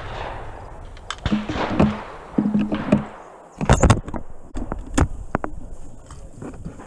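Sharp knocks and clicks close to the microphone as the camera is handled, loudest in a quick double knock a little under four seconds in, followed by several smaller clicks.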